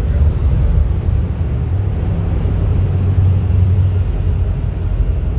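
Cars and a van driving past inside a stone road tunnel: a steady, loud rumble of engines and tyres with a low-pitched boom from the tunnel walls.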